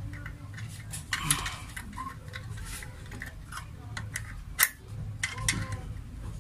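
Screwdriver working a terminal screw on a metal fused safety switch, as a wire is clamped under it: small irregular metallic clicks and scrapes, the sharpest click about four and a half seconds in.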